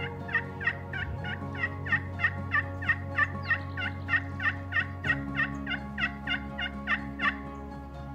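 Hand-held turkey slate call run in a long series of evenly spaced yelps, about three a second, stopping near the end. Soft background music with steady low chords runs underneath.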